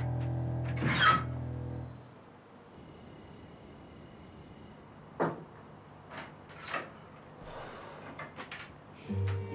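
A door shuts with a sharp click about a second in, over soft music with a low drone that stops soon after. Then quiet room tone with a few faint knocks and clicks as another door is opened, and the music comes back just before the end.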